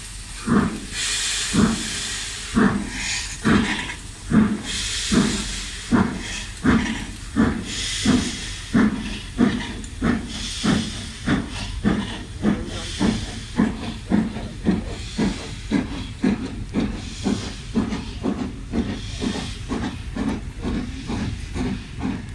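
LMS Princess Coronation Class 4-6-2 No. 6233 Duchess of Sutherland, a four-cylinder steam locomotive, pulling away with its train. Its chimney exhaust beats quicken steadily from about one and a half to two and a half a second over a constant hiss of steam. The beats grow slightly fainter as the engine draws away.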